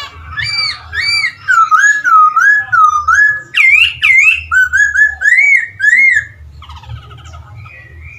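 Poksay Hongkong laughingthrush singing loudly, a series of clear whistled notes repeated in runs. Each note slurs up and down, and the phrase changes every second or so. About six seconds in the song gives way to softer, scratchy chatter, over a low hum.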